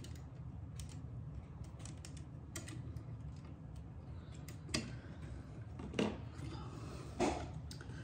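Small scattered clicks and ticks of metal and plastic as a screwdriver loosens the ground screw on a standard wall outlet and the wires are worked free of it, with three louder clicks in the second half, over a low steady hum.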